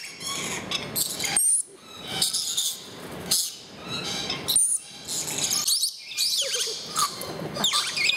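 Lorikeets flapping their wings and giving short, high, shrill chirps and squeals as they crowd onto a bowl of nectar, with more chirping near the end.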